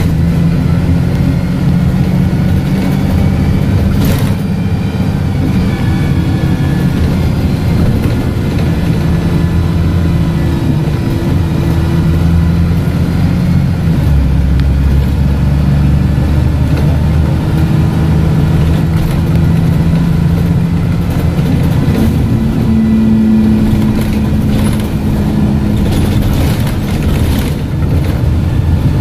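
Dennis Dart SLF bus's diesel engine and Voith automatic gearbox heard from inside the passenger saloon while the bus drives, the gearbox loud. The engine note shifts with road speed, with a deeper rumble about halfway through and the pitch stepping up about three quarters of the way in.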